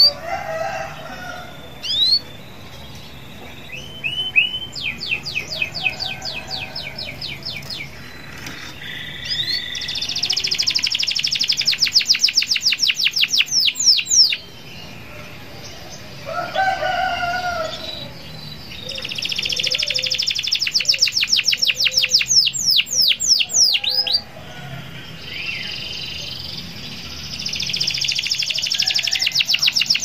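Domestic canary singing full song: long rolls of rapid, evenly repeated high notes in phrases of about four to five seconds, separated by short pauses.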